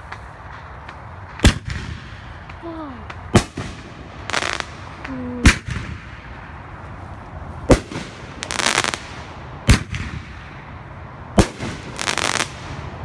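Consumer aerial fireworks going off in a finale: six sharp bangs about two seconds apart, with stretches of crackling between them as the shells burst into sparks.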